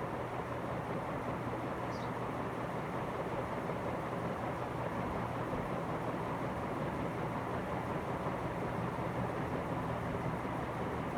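Northwest Envirofan Gold Line heavy-duty industrial ceiling fan running: a steady rush of moving air over a low, even motor hum.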